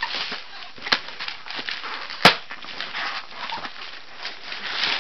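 Packaging being handled and torn open: newspaper and cardboard rustling and crinkling, with small clicks and a sharp snap a little over two seconds in.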